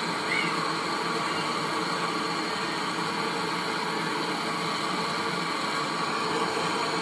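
A steady hissing noise with a faint hum, even throughout.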